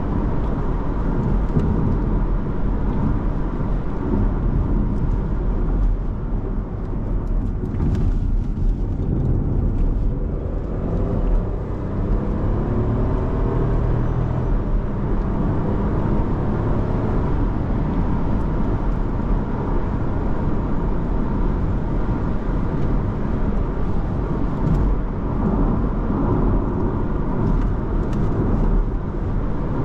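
Driving sound of a 2024 Škoda Kamiq with the 1.0 TSI three-cylinder turbo petrol engine, heard from inside the cabin: steady road and tyre noise under the engine. About a third of the way in, the engine note rises for several seconds as the car accelerates.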